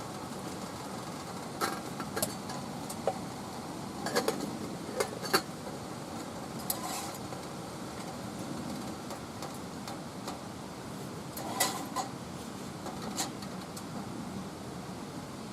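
Scattered clinks and knocks of cookware and utensils being handled, a dozen or so light metal-and-dish contacts, some in quick pairs, over a steady low background noise.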